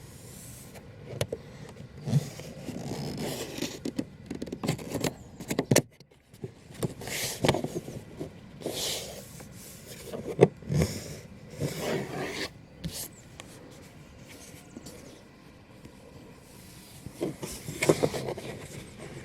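Irregular rubbing and scraping with scattered clicks and knocks, in uneven bursts with quieter pauses: hands working on car interior trim and parts.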